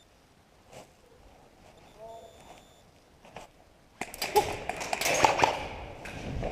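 Footsteps crunching and rustling through dry undergrowth, starting loud about four seconds in, after a few faint isolated clicks.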